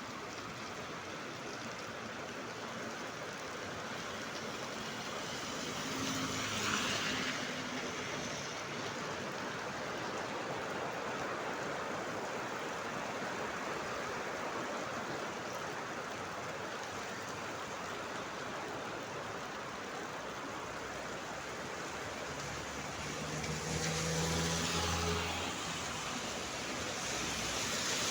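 Heavy rain falling steadily. Twice a vehicle passes, about six seconds in and again near the end, with a swell of hiss and a low engine hum over the rain.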